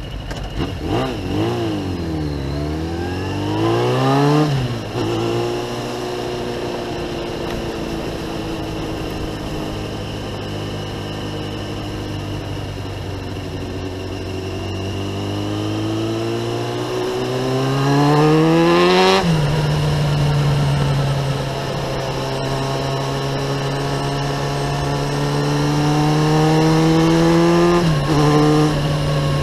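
Kawasaki ZX-9R's inline-four engine through a Remus aftermarket exhaust, accelerating hard through the gears. The pitch sinks low at first, then climbs, with sharp drops at each upshift: about four seconds in, about two-thirds of the way through, and again near the end. Wind rushes steadily under the engine.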